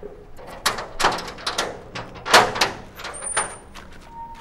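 A gate being unfastened and opened: a quick, irregular run of knocks and rattles, the loudest about two seconds in.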